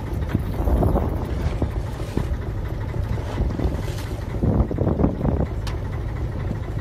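Wind buffeting the microphone over the steady low rumble of a boat at sea, with a few faint clicks and knocks.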